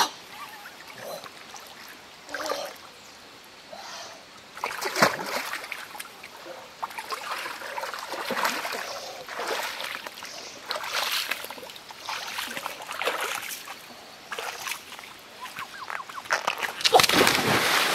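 Water splashing and sloshing as a person wades through a shallow river, in irregular bursts, the biggest splash near the end, with brief vocal sounds now and then.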